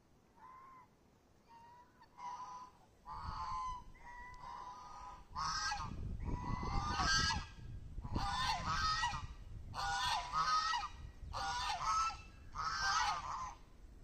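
Geese honking repeatedly in a series of calls, faint at first and louder from about five seconds in.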